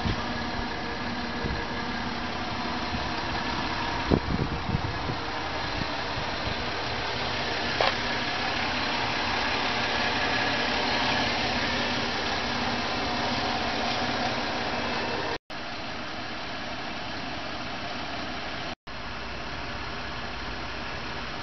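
A Ford Escape's 3.0-litre Duratec V6 idling steadily, heard from outside the vehicle.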